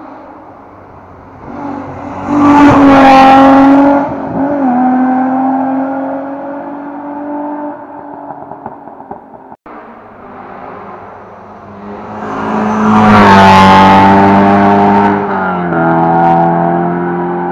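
A rally car passes at speed, its engine note swelling up loud and dropping in pitch as it goes by; about ten seconds later a second rally car passes the same way.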